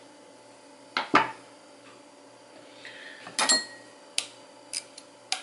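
Knocks and clatter on a wooden cutting board as a halved avocado is handled and set down: two sharp knocks about a second in, a louder clatter past the middle, then a few light taps.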